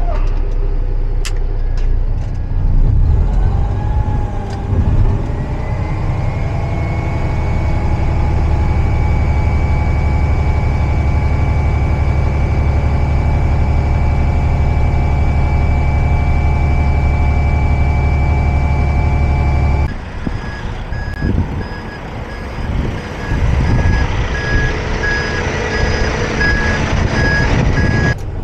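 Roll-off truck's diesel engine revs up and holds steady at high revs with a steady whine while the hydraulic hoist unloads a dumpster, then drops back to idle suddenly about twenty seconds in. Near the end a backup alarm beeps at an even pace.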